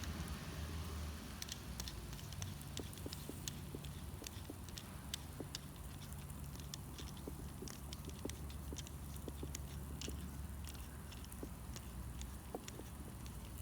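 Scattered light clicks and taps of small metal parts being handled and unscrewed on a belt-drive garage door opener rail, over a low steady hum.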